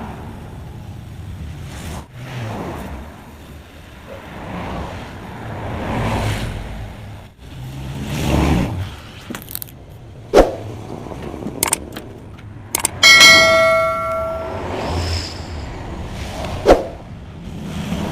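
Road vehicles passing by in slow swells, with several sharp metal knocks and, about thirteen seconds in, one clang of a struck metal piece that rings for over a second.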